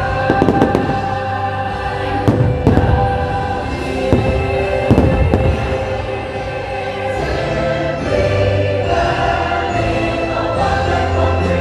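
Show music with a choir singing, over fireworks shells bursting: clusters of bangs about half a second in, around two and a half seconds, and about five seconds in.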